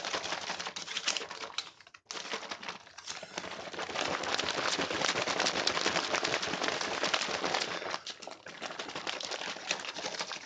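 An MRE dairy shake pouch of powder and cold water being shaken hard to mix it: a fast, continuous crinkling rattle of the plastic pouch, with a brief break about two seconds in.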